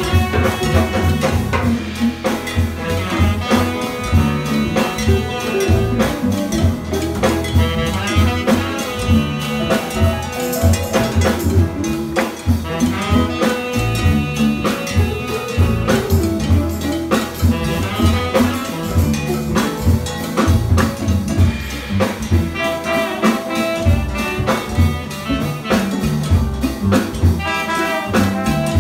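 Live jazz band playing: horn lines from tenor saxophone and trombone over upright bass, guitar, piano, drum kit and hand percussion on congas.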